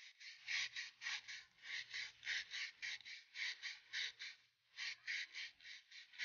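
100-grit sandpaper rubbed back and forth by hand over a rusty metal plumb bob, scouring off the rust: rasping strokes about four a second, with a brief pause about four and a half seconds in.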